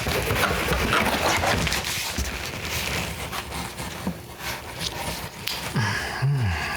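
A man's grunts and heavy breathing over the rustle and scrape of packaging being handled, with a low falling grunt near the end.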